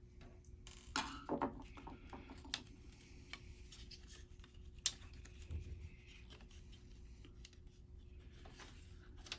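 Faint scattered clicks, taps and light scrapes of a small screwdriver and plastic laptop parts being handled while a laptop cooling fan is unscrewed and freed, with a sharper click about five seconds in. A faint steady hum sits underneath.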